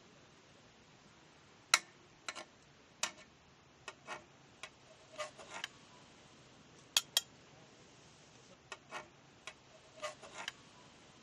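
Steel ladle clinking against a steel cooking pot and a glass bowl while foam is skimmed off simmering mutton. The taps are scattered and sharp, about fifteen of them, loudest about two seconds in and again around seven seconds.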